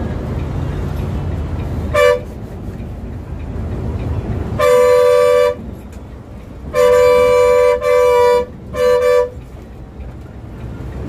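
A bus horn sounding two notes together, honked five times while overtaking: one short toot, then a blast about a second long, then three blasts in quick succession. Under it runs the steady rumble of the Volvo B7R coach's engine and tyres, heard from the driver's cab.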